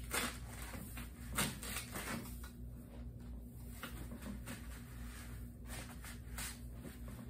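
Long foam tubes being handled and bent, giving a series of short rustles and scrapes.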